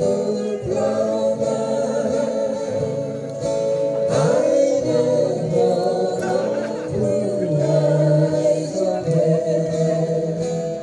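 Several voices singing together in long held notes, with an acoustic guitar accompaniment.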